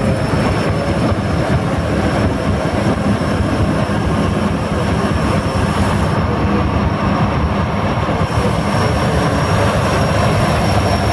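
Kirovets K-700A articulated tractor's V8 diesel engine running steadily as the tractor drives slowly and turns.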